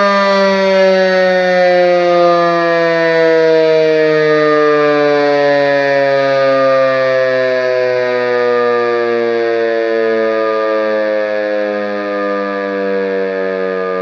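DS 977 electromechanical civil-defence siren winding down, its loud howl sliding slowly and steadily lower in pitch as the rotor slows.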